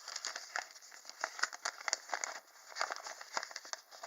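A paper leaflet being handled, rustling and crinkling in a run of small, irregular crackles.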